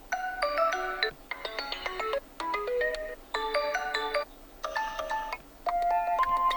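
A TCL 408 smartphone's default ringtone playing: a short electronic melody of clear stepping notes in phrases, the tune repeating about every three seconds.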